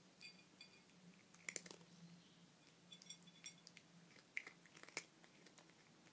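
A domestic cat chewing dry kibble, with crisp crunches in a few short bursts, the loudest about a second and a half in and again around four and a half to five seconds in.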